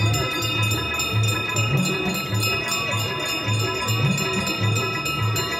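Brass aarti bells ringing rapidly and continuously over a steady low drum beat of a little under two strokes a second.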